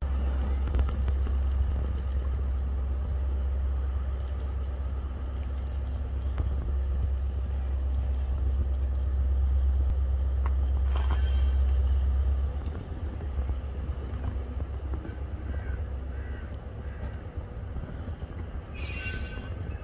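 Low, steady rumble of a Class 73 electro-diesel locomotive moving a test train slowly out of the yard; it drops down about twelve seconds in. A bird calls briefly twice.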